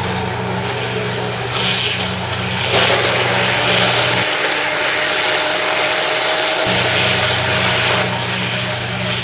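Handheld immersion blender (wand mixer) running in a stainless steel container of vinaigrette, a steady motor whine over the churn of liquid, creeping slightly up in pitch. Olive oil is being blended in to emulsify the dressing.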